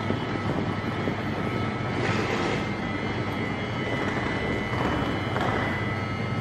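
Newag Impuls 2 electric multiple unit standing at an underground platform, its onboard equipment humming: a steady low drone with thin steady whines above it, echoing in the station.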